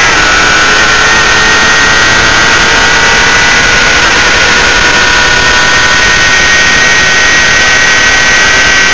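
Motorcycle engine held at high revs at speed, its pitch nearly level, under loud, steady wind rush on a camera mounted on the bike.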